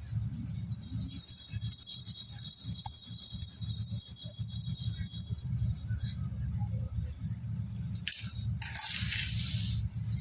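Hands kneading and squeezing crushed slate-pencil powder into a ball in a steel bowl, a steady low crumbly handling sound, with bangles jingling with a high ringing for a few seconds early on. Near the end a plastic bag of broken slate-pencil pieces rustles loudly for about a second.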